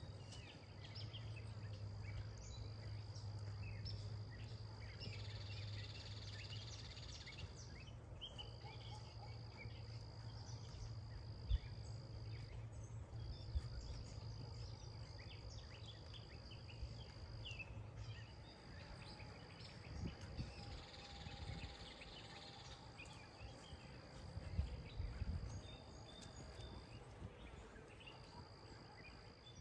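Songbirds chirping and calling over a steady high-pitched trill that breaks off briefly every few seconds. A low steady hum sits under the first half, and two sharp clicks come near the middle.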